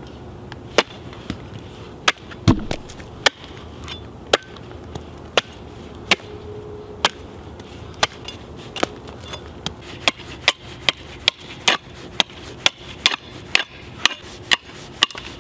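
Restored bearded hewing axe chopping down onto a wooden stump, a series of sharp chops, first through a hedge apple (Osage orange) and then into a stick of wood. The blows come about once a second at first and quicken to about two a second near the end.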